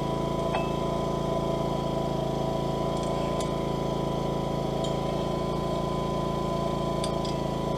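Steady drone of a running forge, with a few faint light metal clinks.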